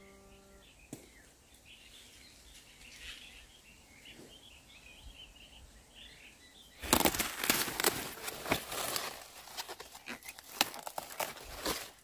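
Faint birds chirping, then from about seven seconds in, loud close crackling and snapping of leafy greens being handled and broken off at the stalk.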